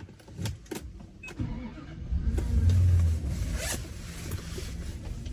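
A few sharp clicks and knocks, then a car engine starts about two seconds in, running loudest for about a second before settling to a steady idle.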